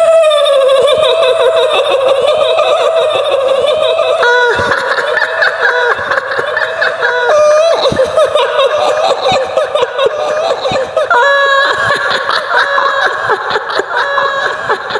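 Shrill, high-pitched woman's cackling laugh, the kuntilanak ghost laugh of Indonesian horror lore, going on without a break with a wavering pitch.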